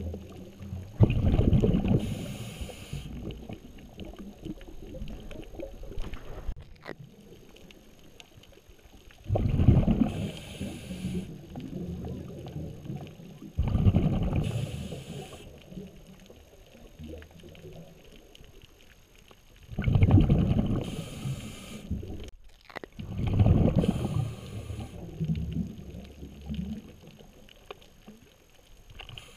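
Scuba diver's breathing heard underwater: exhaled bubbles rushing out in five bursts a few seconds apart, each a second or two long, with a fainter hiss between breaths.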